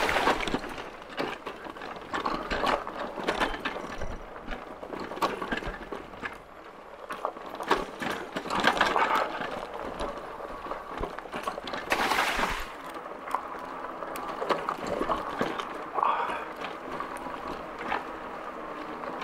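Loaded Magicycle Cruiser e-bike rolling downhill over a rough gravel and dirt track: tyres crunching on stones while the frame, rear rack and handlebar-mounted gear rattle and knock with every bump. There are several louder bursts of clatter.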